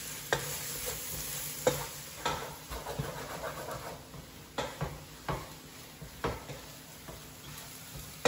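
Spatula stirring onion-tomato masala and ground spices frying in a pan: a steady sizzle with about six scrapes and knocks against the pan at uneven intervals. The spices are being fried until their raw smell goes.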